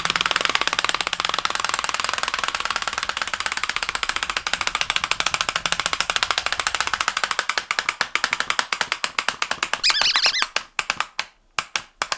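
A dog toy clicking rapidly, the clicks slowing steadily and thinning out into separate clicks near the end, with a short squeak about ten seconds in.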